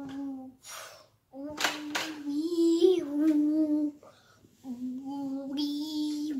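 A child's voice holding long sung notes, nearly on one pitch with a small rise in the middle. One note ends just after the start, a long one runs from about a second in to about four seconds in, and another begins near the end, with short breaks between.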